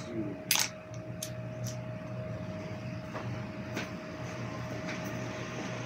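Steady low electric hum of room cooling equipment, with a faint thin tone held above it. About six short, sharp clicks are scattered through it.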